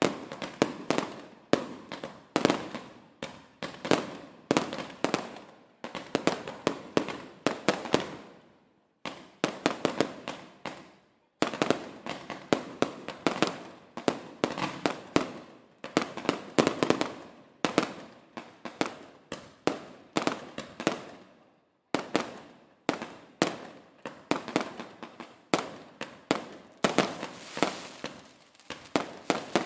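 Fireworks going off in rapid volleys of sharp bangs, dense and overlapping, each dying away quickly. There are short breaks about nine, eleven and twenty-two seconds in.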